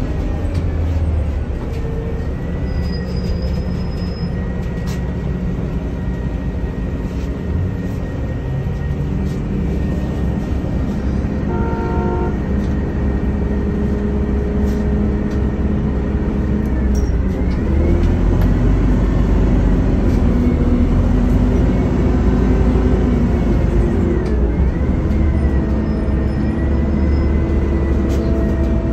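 City traffic: the engines of buses and other vehicles running and pulling away, a steady low rumble that grows a little louder in the second half, with a brief horn-like tone about twelve seconds in.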